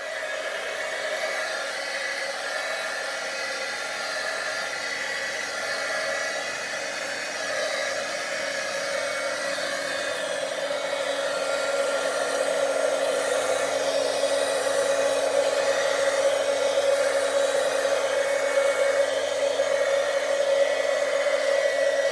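Handheld heat tool (heat gun) blowing hot air over wet poured acrylic paint: a steady whirring rush that grows a little louder about halfway through.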